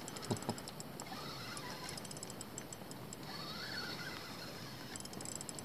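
Spinning reel being cranked to bring in a small walleye, its gears ticking rapidly, with a pause in the middle. Two soft knocks about half a second in.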